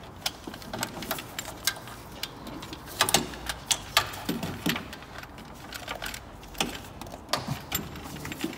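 Scattered light metallic clicks and taps of hand tools and sockets knocking against bolts and brackets in a car's engine bay, with a few sharper knocks about three and four seconds in.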